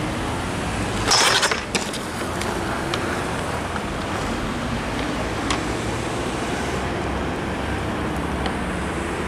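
Steady low rumble of road traffic. About a second in comes a short, loud clatter of a skateboard, followed by a few sharp knocks.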